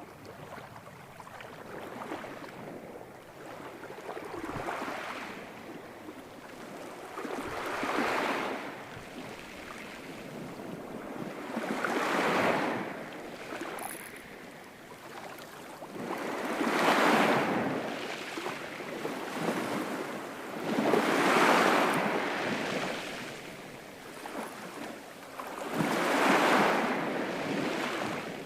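Ocean waves breaking and washing in, about six in a row, each one swelling up and fading away every four to five seconds, the later ones louder.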